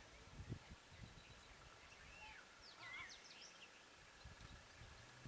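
Near silence: faint outdoor ambience with a few short bird chirps about halfway through, over a faint steady high-pitched tone.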